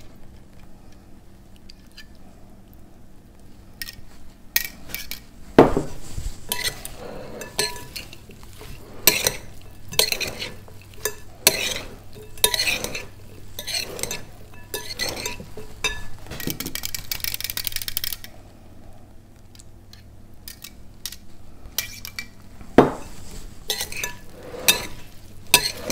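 Metal serving spoon clinking and scraping against a glass mixing bowl as a chopped salad is tossed with its dressing. The strokes come in irregular runs, with a loud knock about six seconds in and another near the end, and a quieter spell between.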